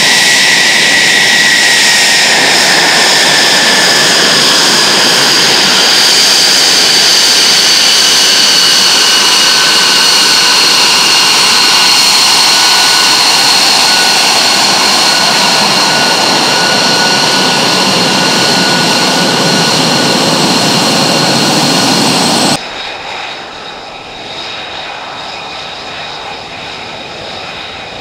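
F-35A Lightning II's Pratt & Whitney F135 turbofan running loud at taxi power, a jet rush with several high whining tones that slowly fall in pitch. About twenty-two seconds in the sound cuts abruptly to a quieter, steady jet whine.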